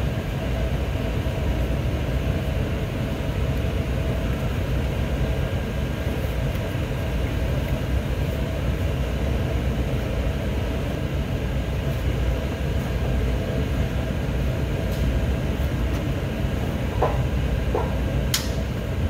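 A steady low mechanical rumble with a faint hum runs throughout. A few light clicks come near the end, with a sharper one just before it ends.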